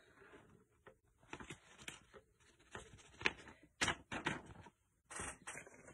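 Faint, irregular light clicks and taps of small craft supplies being handled on a work desk, about a dozen scattered knocks with short gaps between them.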